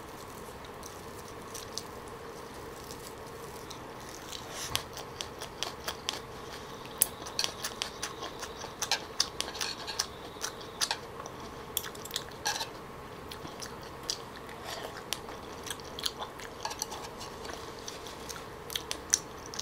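Close-miked chewing of a mouthful of red leaf lettuce wrapped around soy-marinated raw salmon: many small crisp, wet crunches and smacks, starting about four seconds in, over a faint steady hum.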